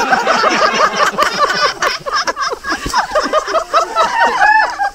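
Several people's voices overlapping, with laughter.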